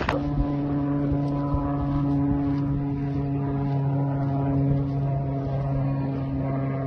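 Small propeller-driven military drone's engine buzzing steadily at one unchanging pitch.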